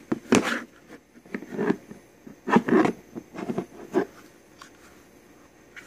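Irregular handling noises: a run of short knocks, clicks and rustles over the first four seconds, then only a faint steady background.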